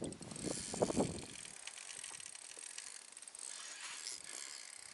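Spinning reel being cranked, its gears clicking finely and evenly as the line is wound in. Louder clothing rustle against the microphone comes in the first second and a half.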